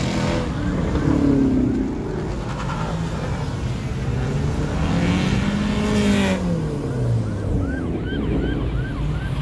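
Muscle-car engines, a Dodge Challenger among them, revving and driving past, their pitch rising and falling as they go by. Near the end a quick repeating high chirp starts up.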